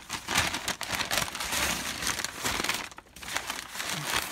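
Brown packing paper crumpling and rustling as it is handled by hand, with a short break about three seconds in.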